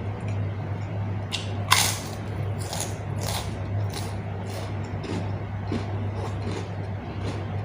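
Close-miked chewing and crunching of food, a rhythmic crunch about twice a second with the sharpest bite about two seconds in, over a steady low hum.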